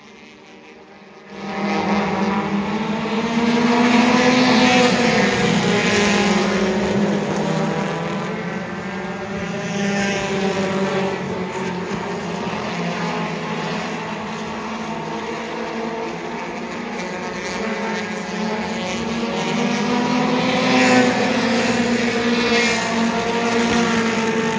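A pack of mini stock race cars' four-cylinder engines running at speed around the oval, several engines overlapping. The engine pitch rises and falls as the cars pass, loudest about four seconds in and again near the end. The engines cut in about a second in, after a brief quieter moment.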